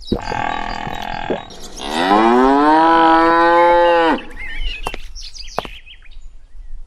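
Cow mooing: a short rough call, then a long loud moo that rises in pitch and holds level for about two seconds. Brief bird chirps follow.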